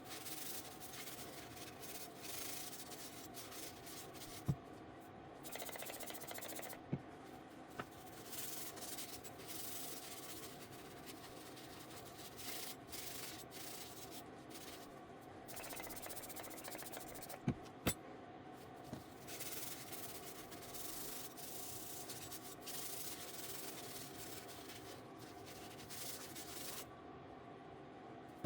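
Spraying hiss in long bursts with short pauses, over a steady motor hum, with a few sharp clicks.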